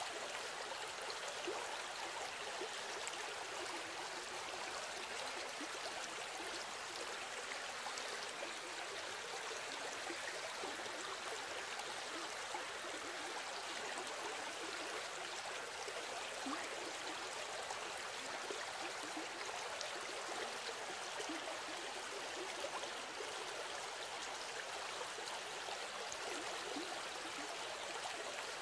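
A steady rushing noise of flowing water, like a stream, with fine flickering detail and no pauses or changes.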